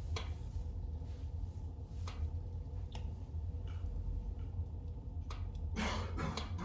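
Spruce logs burning in a fireplace: scattered sharp crackles and pops over a steady low rumble, with a cluster of louder pops near the end.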